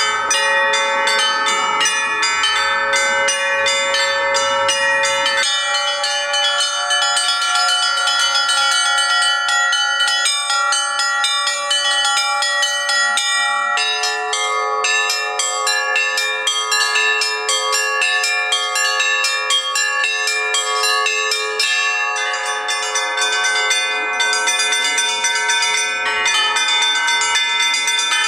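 Russian church bells ringing: many bells struck in a quick, steady rhythm over longer-ringing tones. The set of pitches changes abruptly three times.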